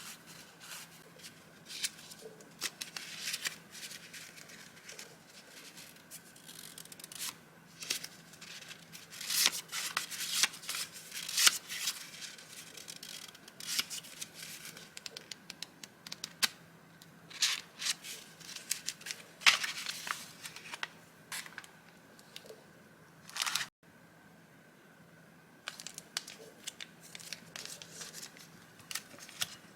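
Paper being handled: irregular rustling and crinkling in short bursts, with a few louder crackles, over a faint steady hum.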